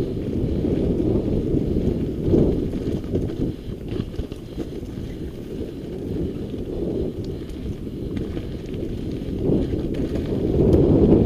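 Mountain bike descending a loose, stony dirt trail: tyres rumbling over gravel and rocks and the bike rattling, with wind noise on the microphone. It gets louder near the end as the bike picks up speed on rougher ground.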